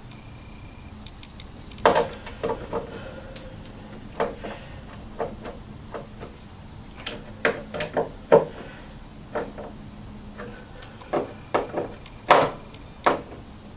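Irregular clicks and knocks as screws are worked in to fasten a speaker back into its cabinet. The sharpest knocks come about two seconds in and again near the end.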